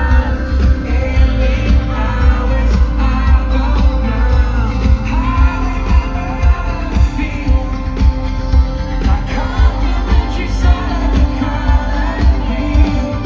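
A live pop band plays with a lead vocal singing over it. A heavy bass and drum beat dominates the loud concert sound.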